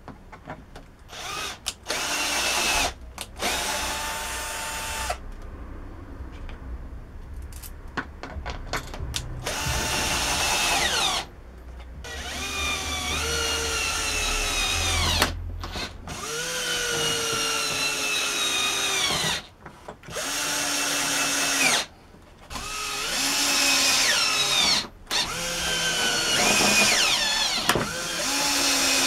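Electric drill run in repeated short bursts, stopping and starting about a dozen times. Its motor whine often sags in pitch during a burst as the bit or screw loads it.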